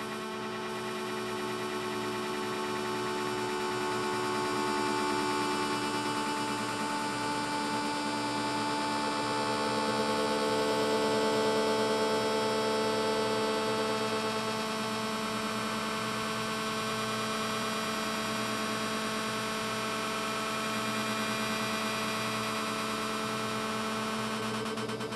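An old Hohner Marine Band harmonica recording slowed down into a low, steady drone of many held tones together, swelling a little about ten to thirteen seconds in.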